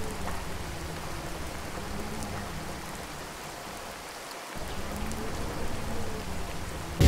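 Steady rain falling, an even patter, with a faint low hum underneath that gently rises and falls.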